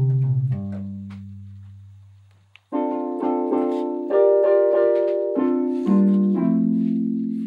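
Piano music: held chords fade away almost to silence about two and a half seconds in, then new chords are struck and ring on.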